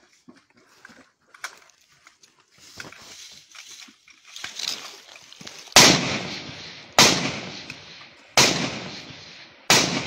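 Four single rifle shots about a second and a half apart, each a sharp crack trailing off in a long echo, after a few seconds of faint rustling and clicks.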